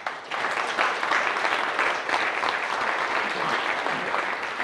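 A room of guests applauding a speech, the clapping breaking out suddenly and then holding steady.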